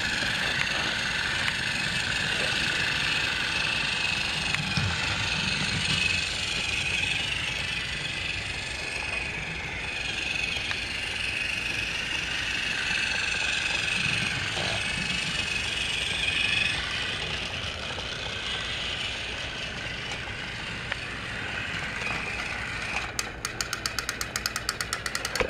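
Battery-powered TrackMaster motorized toy train running along plastic track: a steady high motor whine with the rattle of the plastic wheels and cars. Near the end a fast, even clicking joins it.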